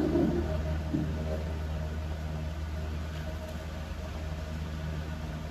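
Quiet room with a steady low hum, and a couple of faint soft knocks near the start.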